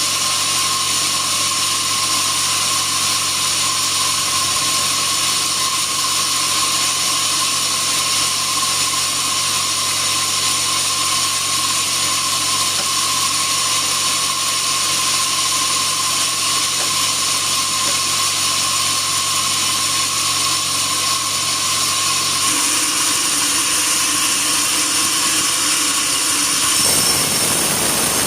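Band sawmill running steadily with a dense, high-pitched sawing hiss and a steady whine, its sharp bandsaw blade working through wood. The low hum drops out about three-quarters of the way through, and the sound shifts again near the end.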